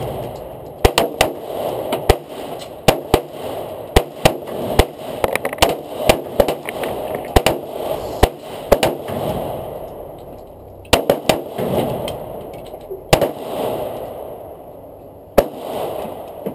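Handgun shots on a shooting range: many sharp reports at irregular spacing, some in quick pairs, each followed by a short echo, with two brief lulls in the second half.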